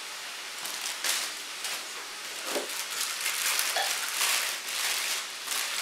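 Plastic packaging crinkling and rustling in irregular bursts as vacuum accessories are unwrapped, busiest in the second half.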